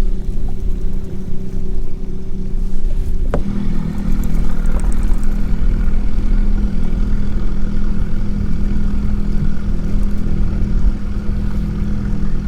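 Electric Minn Kota trolling motor of a motorized fishing kayak running with a steady hum over low rumbling noise. About three seconds in there is a click, and the hum steps slightly in pitch and grows stronger as the motor speed changes.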